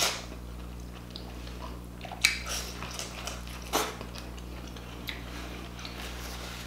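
Close-miked eating sounds of corn on the cob soaked in seafood-boil sauce being bitten and chewed: a few sharp wet bites and mouth smacks, the loudest about two seconds in, with quieter chewing between. A steady low hum runs beneath.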